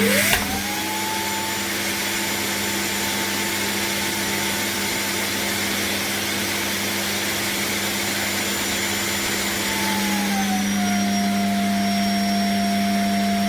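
Shark Detect Clean & Empty cordless vacuum cleaner's motor spinning up with a rising whine, then running steadily; about ten seconds in its pitch drops a little and it gets slightly louder.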